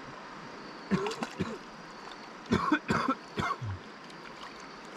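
A person coughing several times in short bursts: once about a second in, then a louder run of coughs a little past halfway.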